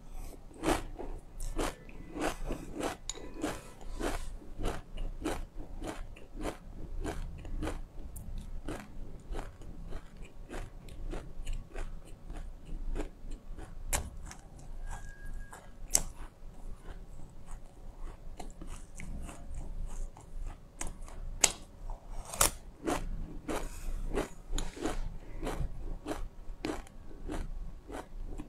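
Close-up mouth sounds of chewing a mouthful of dry toasted black and hulled white sesame seeds: a rapid run of small crisp crunches, thinning out in the middle and thickening again near the end, with a few sharper clicks.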